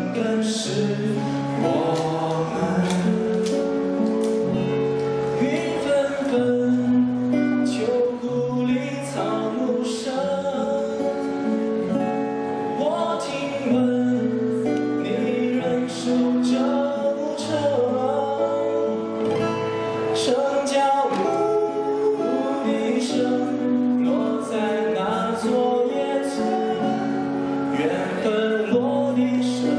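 Male voices singing a Chinese pop ballad with long held notes, accompanied by a strummed acoustic guitar.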